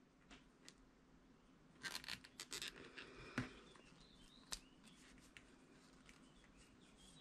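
Faint clicking and scraping of knitting needles and yarn as stitches are worked, with a cluster of small clicks about two to three and a half seconds in and a single sharper click a little later.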